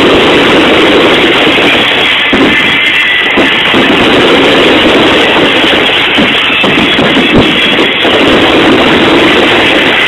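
Loud music played over a fireworks display's sound system.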